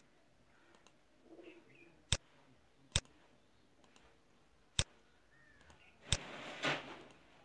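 Five sharp, separate clicks from a computer mouse and keyboard at irregular intervals, as slabs are selected and deleted one by one. A brief hiss-like rustle follows the last click, near the end.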